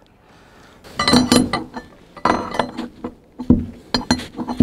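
A steel bar clinking against the screw jack in a slot of a cedar log post as the jack is turned to lower the settling log frame. The sharp metallic clinks come in clusters about once a second, starting about a second in.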